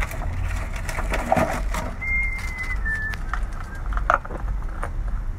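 Scattered clicks and knocks of hands working cable lugs and terminals on lead-acid batteries, over a low rumble. Two short high whistle-like tones sound about two and three seconds in, the second slightly lower.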